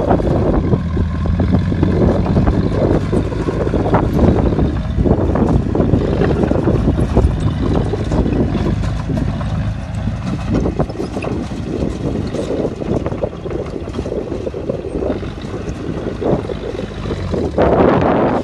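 Bulldozer's heavy diesel engine running steadily and loud, with rough mechanical clatter over a low engine drone.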